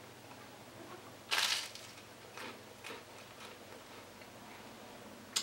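Close-up eating sounds: a person chewing boiled egg and toast. There is one short, loud crunchy noise about a second and a half in, then a few softer ones.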